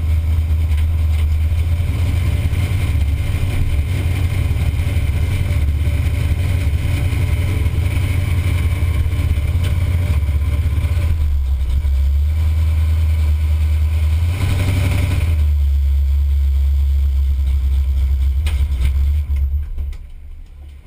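Pontiac 455 V8 heard from inside the Buick wagon's cabin, running low and steady at low speed, briefly louder about fifteen seconds in. The engine cuts off about a second before the end.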